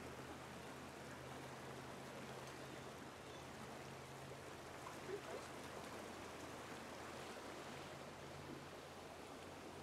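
Steady rush of a swollen river in flood, with one brief sharper sound about five seconds in.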